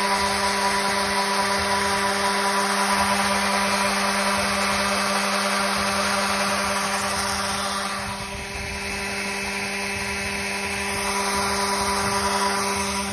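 A power tool's motor running steadily with a rasping scrub over its hum, easing briefly about eight seconds in; likely cast iron cookware being stripped to bare metal.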